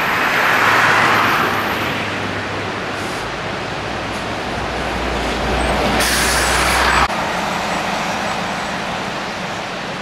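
Rain-swollen waterfall rushing: a steady spray of falling water, swelling near the start and again for about a second around six seconds in, where the rush turns brighter and then cuts off suddenly.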